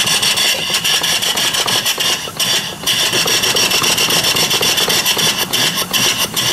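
Live steam engine running, its exhaust chuffing out of an open pipe in a fast, even beat over a steady hiss of steam. The beat eases briefly about two seconds in.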